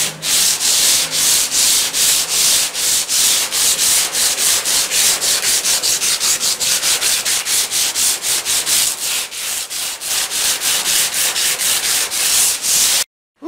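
A sheet of sandpaper rubbed by hand over a metal desk, in quick, even back-and-forth strokes at about four a second.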